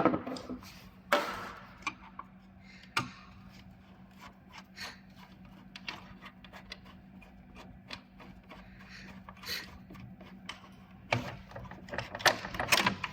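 Parts of an exercise bike's resistance adjuster being handled and taken off the frame: scattered clicks, taps and rubbing, with a sharp knock about a second in and another about three seconds in, and a busier run of clicks near the end. A faint steady hum runs underneath.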